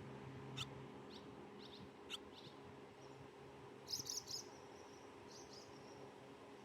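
Barn swallows chirping faintly: a few short, falling notes in the first two and a half seconds, then a quick cluster of high twittering notes about four seconds in and a couple more soon after.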